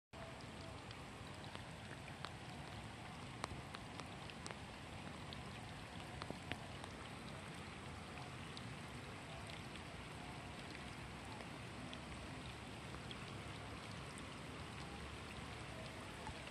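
Light rain falling on the water of a flooded rice paddy: a faint, even hiss with scattered drop ticks, a few of them a little louder.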